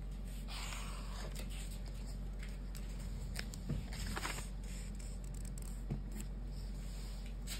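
Highlighter marker scratching across a paperback page, then the page being turned with a short paper rustle and light taps, over a steady low hum.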